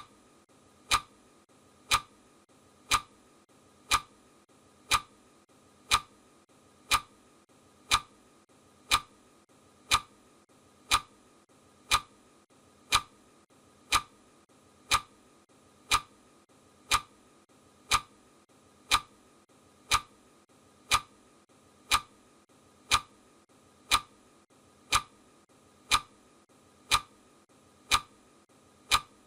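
Clock ticking steadily once a second, each tick a short sharp click.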